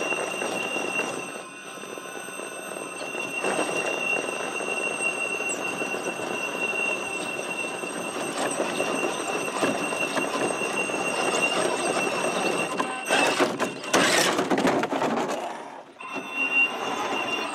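Electric RC rock crawler (Axial SCX6 with a 3BRC Black Jacket 860kv sensored brushless motor on a Castle Mamba X ESC) crawling up rock, its drivetrain whining steadily at a high pitch over a rough, changing grind of gears and tyres on stone. About thirteen seconds in, a louder rush of noise takes over, then it drops away suddenly and the whine returns.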